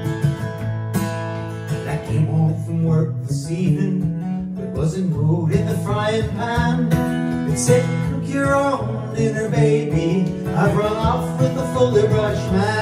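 Acoustic guitar picked in a country-folk style, with a man's voice singing along from a couple of seconds in.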